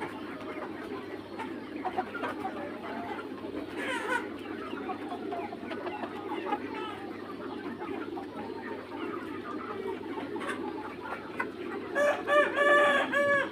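Young Mía chickens clucking and calling softly over a steady low hum, then, about twelve seconds in, a young rooster crows loudly for about a second and a half.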